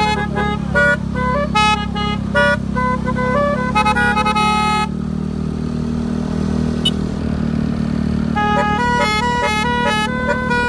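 Basuri keong telolet horn, a multi-trumpet electric vehicle horn, playing a fast tune of quick stepping notes; it stops for about three and a half seconds midway and starts again near the end. A steady low engine hum runs underneath.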